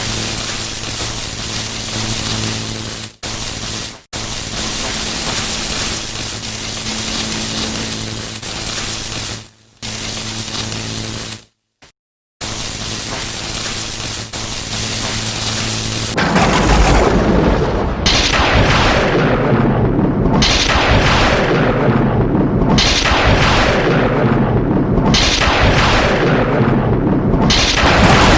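Electricity sound effects. First a steady crackling electrical buzz with a low hum under it, cut off abruptly several times between effects. Then, about halfway through, it turns into a louder run of lightning-strike cracks and booms, about one a second.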